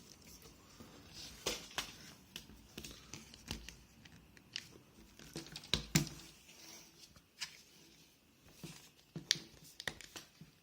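Plastic screen bezel of a laptop being pried off by hand: irregular sharp clicks and creaks as its snap clips let go, loudest about six seconds in and again just after nine seconds.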